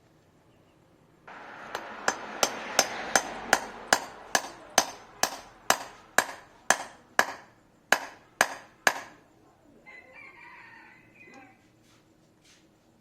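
A hammer strikes about seventeen sharp blows at a steady pace of two to three a second, ending about nine seconds in.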